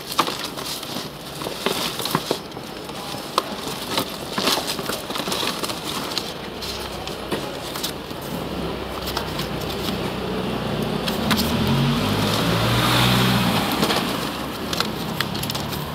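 Rustling and crackling of cardboard boxes, paper and plastic bags being rummaged through by hand. About halfway through, a motor vehicle's engine hum comes up, grows loudest a few seconds before the end, then eases off.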